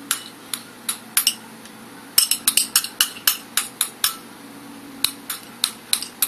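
A metal utensil clinking and tapping against a dish, about fifteen sharp clinks, some in quick runs, as butter is spread into a baking container.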